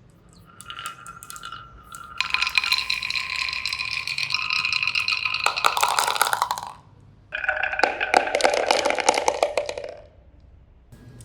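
Marbles rolling and clattering down a marble run's tracks: a dense rattle of clicks with ringing tones over it. It comes in two long runs, the first starting about two seconds in and the second just after the middle, with a few faint clicks before them.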